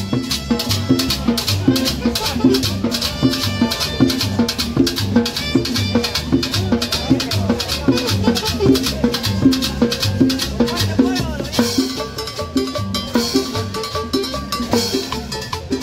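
Live street band playing dance music: a metal shaker keeps a fast, steady rhythm over drums and a double bass walking through repeating low notes.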